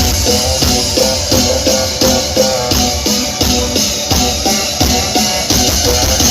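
Loud music with a heavy, steady drum beat, played through a large carnival sound system.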